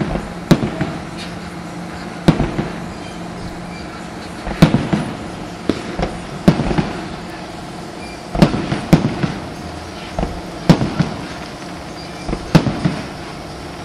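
Fireworks display: aerial shells bursting overhead in loud, sharp bangs every second or two, some in quick pairs, each trailing off in a short echo.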